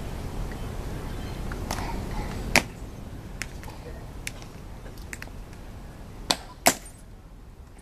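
Sharp clicks of the Tomb guards' metal-tapped heels striking and snapping together on the stone plaza as they face, turn and step: a series of single clicks, the loudest about two and a half seconds in and two more in quick succession near the end.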